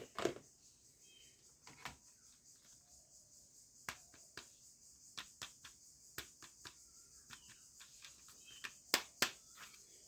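Irregular sharp clicks and snaps from plastic toy guns being handled. The loudest snap comes just after the start, with two more close together near the end, over a steady faint high hiss.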